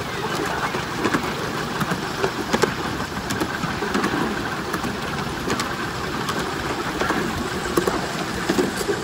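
Steel-wheeled ride-on trolleys of a 5-inch gauge miniature train rolling along the track, heard from on board: a steady rattling rumble with sharp clicks at irregular times.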